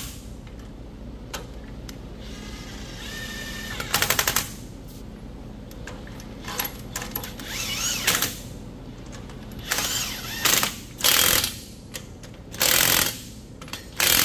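Cordless impact wrench on the lug nuts of a truck's front wheel, running in several short bursts: the motor whirs up, then the hammer clatters rapidly as each nut is run down and snugged.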